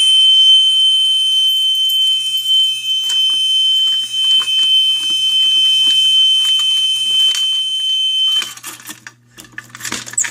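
Gentex fire alarm horns sounding one continuous high-pitched tone after the pull station has been activated. The tone cuts off suddenly about eight seconds in, followed by a few clicks and rattles.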